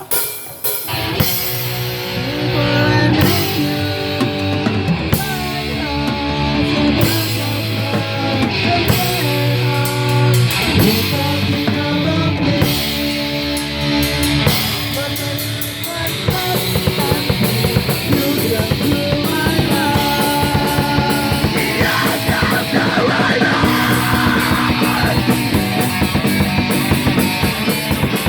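Rock song with electric guitars and drums. The full band comes in louder and busier about sixteen seconds in.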